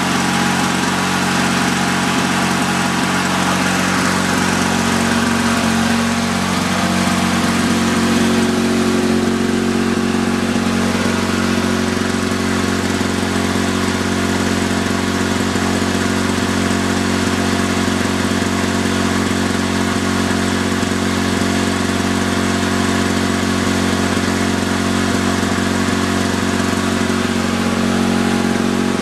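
1965 Lawn-Boy model 5233's freshly rebuilt two-stroke engine running steadily, with a slight rise in pitch about six or seven seconds in.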